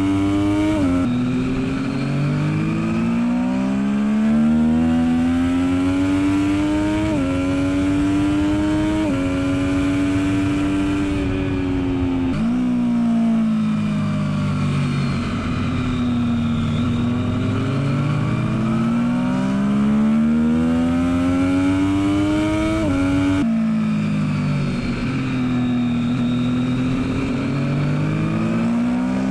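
Triumph Daytona 675R's inline three-cylinder engine on track, heard from on board. It climbs in pitch under hard acceleration and drops sharply at each quick upshift, then falls away as the bike slows for a corner and climbs again, over steady wind rush.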